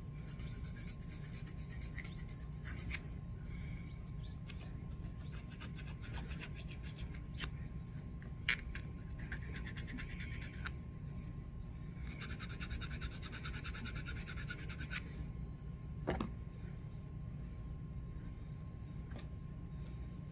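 Small nail file rubbing rapidly back and forth over the edges of a cross-stitch keychain piece, filing down the poking corners. It comes in runs of quick strokes, busiest at the start and again past the middle, with a couple of light knocks.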